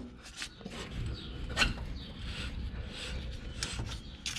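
Scattered light clicks and scrapes from hands and tools working on a coilover in the wheel well, with one sharper click about one and a half seconds in.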